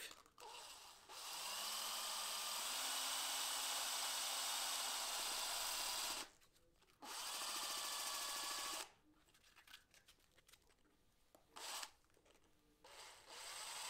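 Electric drill spinning a wooden chisel handle chucked in it as a makeshift lathe, with sandpaper hissing against the turning wood. The drill spins up with a rising whine, runs about five seconds, stops, runs about two seconds more, gives a brief blip, and starts again near the end.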